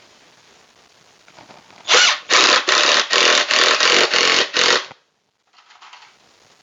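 Power drill driving a screw into pre-drilled wood in about eight short trigger bursts, about three a second, stopping abruptly.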